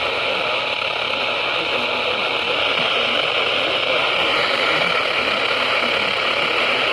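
Radio receiver static: a steady hiss on a weather radio channel with no voice coming through, and a faint steady tone under it.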